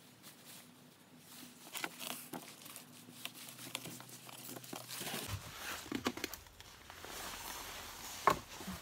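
Hands working potting soil in a plastic seed tray and setting small plastic plant pots down on a wooden table: soft rustling and scattered light taps, busier in the second half, with one sharper knock near the end.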